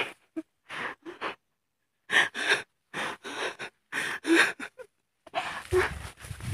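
A man breathing in short, breathy gasps, in quick runs of breaths broken by brief silences.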